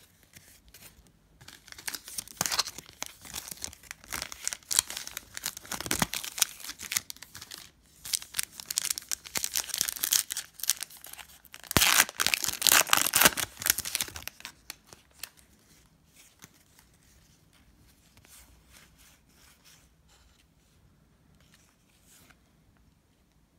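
Foil wrapper of a 2019-20 Donruss basketball card pack being torn open and crinkled, in crackly spells over about twelve seconds, loudest just past halfway. After that, only faint handling of the cards.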